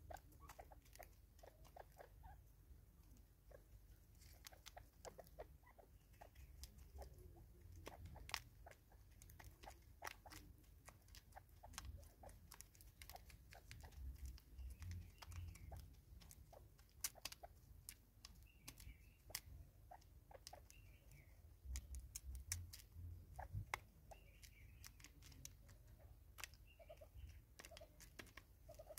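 Irregular sharp taps and clicks of Natal spurfowl beaks pecking seed from a plastic container, quiet overall.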